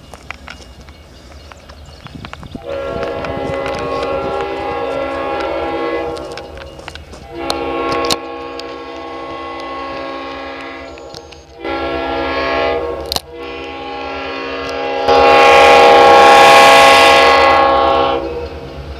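Winchester & Western diesel locomotive horn blowing the long-long-short-long grade-crossing signal as the train approaches the crossing, the final long blast the loudest.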